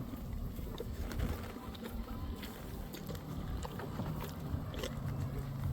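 Low wind rumble buffeting a phone's microphone, with a few faint clicks.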